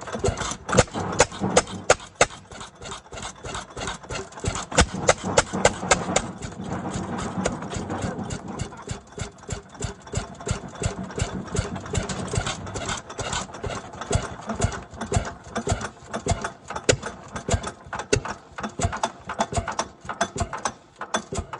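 1929 Fairbanks Morse 7-1/2 hp stationary engine running on its first start, with a quick, uneven string of sharp firing beats, several a second.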